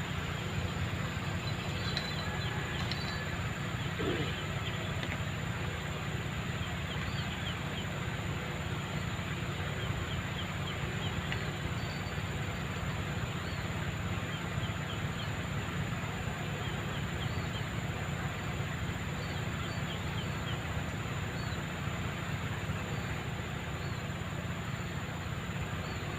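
Steady low outdoor rumble with faint, short high chirps scattered through it.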